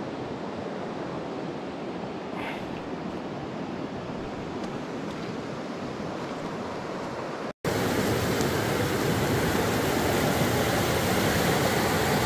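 Steady rush of river water. It cuts out for an instant about two-thirds of the way through and comes back louder.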